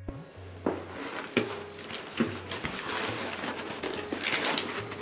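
Cardboard packing inserts and foam wrap being gripped and shifted inside a cardboard shipping box: a run of rustling and scraping with a few light knocks.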